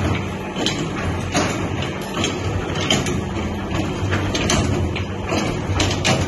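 Electric daleem (haleem) mixing machine running, its motor giving a steady low hum under a regular knock that repeats a little more than once a second as the paddle turns through the pot.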